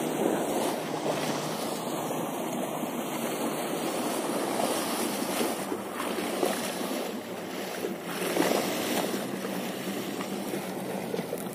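Wind and water noise aboard a small boat at sea, with a low steady hum underneath.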